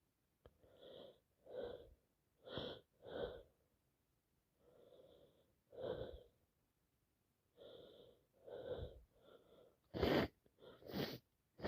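A woman with a cold taking a string of short, catching breaths and sniffs, building to two loud sneezes about ten and eleven seconds in.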